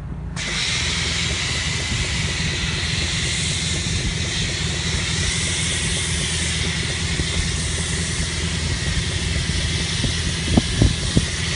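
Pressure-washer snow foam lance spraying thick foam onto a car: a steady hiss that starts suddenly just after the start, over a low rumble. A few short pops come near the end.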